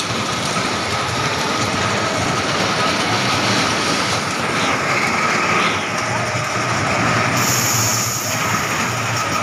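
Small steel roller coaster car running along its track: the wheels rumble on the steel rails, with a steady high whine over the rush.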